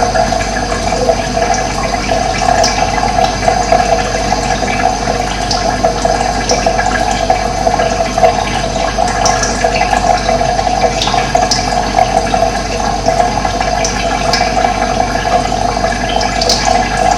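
Running water rushing steadily, with brief high bird chirps now and then.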